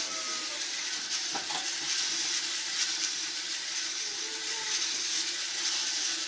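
Coffee beans tumbling inside a hand-cranked metal roasting drum over a wood-fired stove: a steady rattling hiss as the drum is turned.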